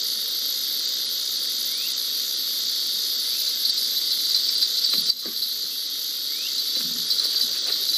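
Steady, high-pitched chorus of singing insects droning without a break, with a brief knock about five seconds in.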